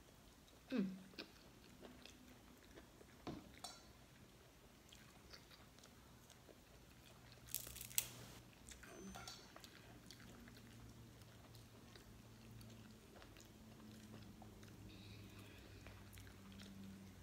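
Mostly quiet soft chewing, with a few scattered clicks and small cracks of shellfish shell being picked apart by hand. The sharpest cluster of cracks comes about eight seconds in.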